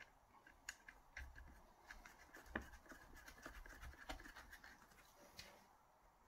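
Faint scratching with scattered light clicks from gloved hands working at the bar of an electric chainsaw.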